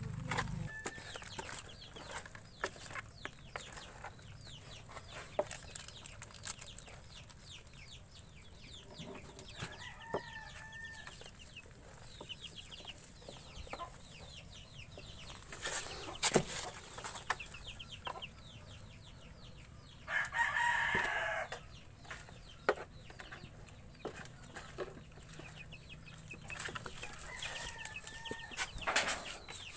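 Chickens clucking, with a single longer call about twenty seconds in that is likely a rooster crowing. Under them are scattered knocks and clicks of hands rummaging through a basin of shrimp and crabs; the sharpest knock comes a little past the middle.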